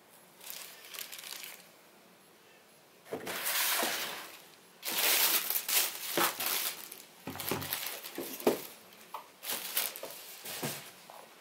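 Tissue paper crinkling and a sneaker being handled while it is unpacked from its box: several bursts of rustling, then shorter, sharper rustles and light taps near the end.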